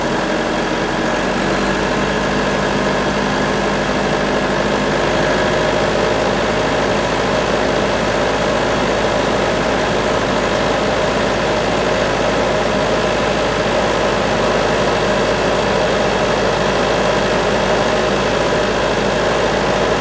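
Large homemade band sawmill running, a loud, even mechanical noise. About five seconds in, the steady hum turns rougher and noisier.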